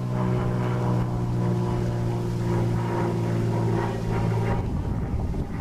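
Engine idling steadily, then cutting off about four and a half seconds in.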